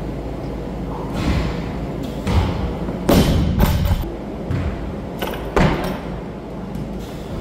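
Barbell loaded with rubber bumper plates thudding onto a wooden lifting platform several times, the loudest impact about three seconds in with a second close behind it, and more near the end, over a steady low gym background.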